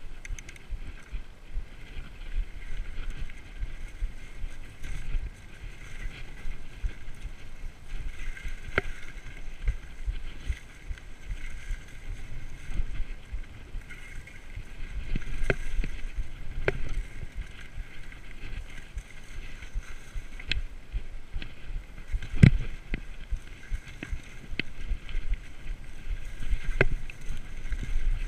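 BH mountain bike ridden down a rough dirt singletrack, heard from a camera on the rider: a steady low rumble of wind and tyres on the trail, with the bike rattling and sharp knocks as it hits bumps. The loudest knock comes about three-quarters of the way through.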